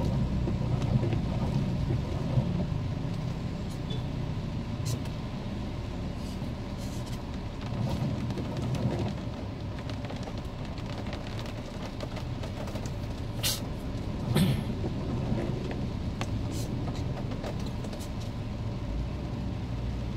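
Car driving, heard from inside the cabin: a steady low rumble of engine and road noise, with a few short sharp ticks, the loudest about two-thirds of the way through.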